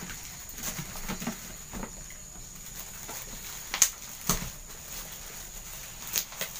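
Plastic packaging being handled and unwrapped: light rustling with a few sharp clicks, two of them close together about four seconds in and another near the end.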